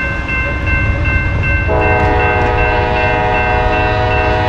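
Diesel locomotive air horn sounding a multi-note chord that comes in about a second and a half in and holds, over the low rumble of the locomotive's diesel engine. A steady high ringing tone runs from the start.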